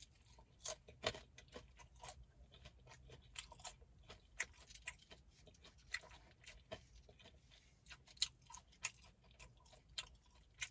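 Close-up chewing of a crunchy hard-shell taco: irregular crisp crunches and wet mouth clicks, a few to several a second.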